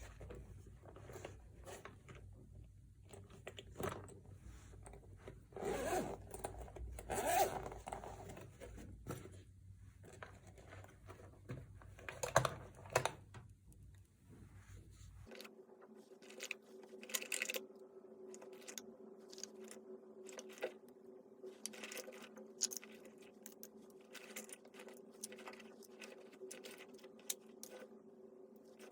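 A make-up bag's zipper is pulled and the cosmetics inside are handled, with rustling, scraping and small sharp clicks of lids and cases. From about halfway, a steady hum sits under the clicks.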